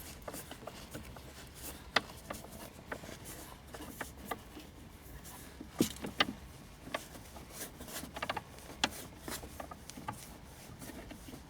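Scattered light clicks and ticks of an Allen wrench and hands working as a set screw is tightened into a transfer case shifter knob.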